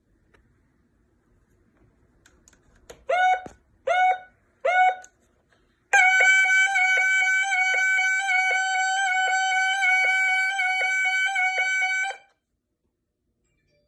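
Electronic alarm sounding three short chirps, each rising quickly in pitch, then a steady high tone for about six seconds that cuts off suddenly.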